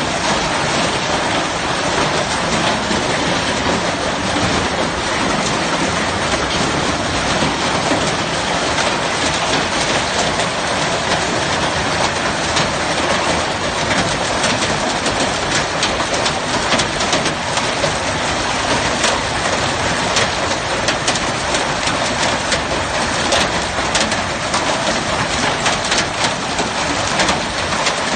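Heavy hailstorm: hail and rain pelting down in a dense, steady clatter. Sharp individual hailstone hits become more frequent in the second half.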